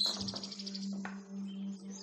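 Birds chirping in quick high notes over a steady low hum, with a couple of short clicks.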